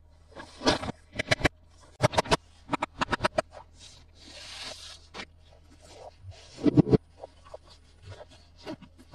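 Hands handling plastic and cardboard toy packaging: runs of sharp clicks and taps, with scraping and a rustle about halfway through, and a few louder knocks shortly after.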